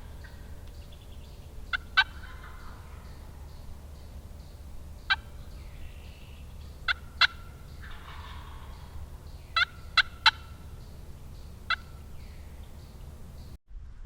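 Wild turkeys calling: a string of short, sharp clucks and cuts, some in quick pairs and threes, with softer gobbling between them.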